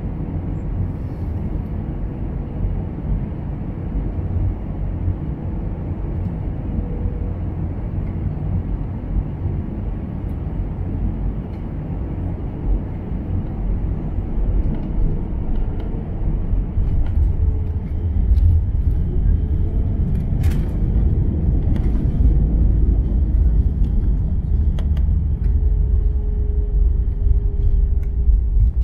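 Cabin sound of an Airbus A320-214 with CFM56 engines landing: a steady rumble of engines and airflow. It grows louder a little past halfway as the aircraft touches down and rolls out with ground spoilers raised, with a few sharp knocks around then and a steady engine tone near the end.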